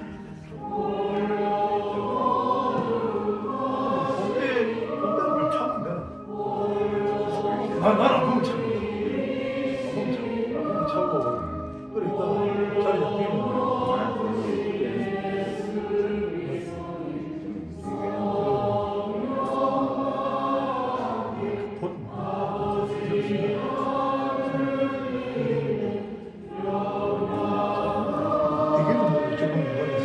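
Background music: a choir singing slow, held phrases of several seconds each, with short breaks between them.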